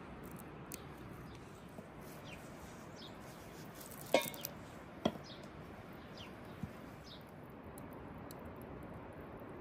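Quiet outdoor ambience with faint, scattered bird chirps. Two sharp clicks about a second apart near the middle, and a softer one a moment later.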